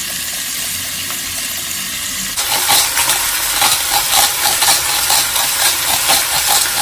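Chicken pieces and onion sizzling in hot oil in a pan, a steady hiss. About two and a half seconds in the sound changes and a run of quick, even shakes comes in over the sizzle, about three a second, as salt is shaken onto the chicken.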